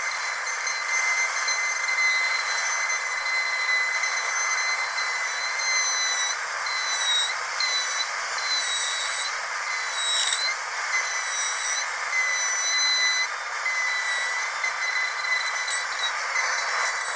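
Dentist's drill whining steadily at a high pitch over a steady hiss, the whine dipping briefly in pitch a few times.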